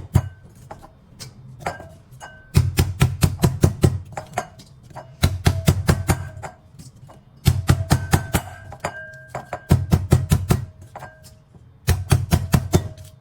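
Pestle pounding chopped lemongrass in a mortar: bursts of rapid heavy strikes, about six a second, each burst lasting a second or so with short pauses between.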